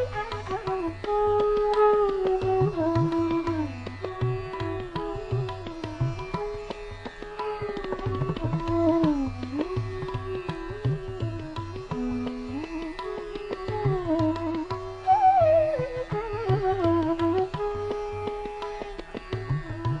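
Indian classical background music: a single melody that slides and bends between notes, played over tabla drumming.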